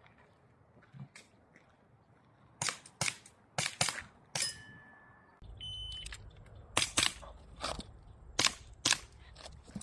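Airsoft gun firing 6mm BBs in a string of sharp shots, several in quick pairs, with a short steady tone near the middle and a low rumble starting about halfway.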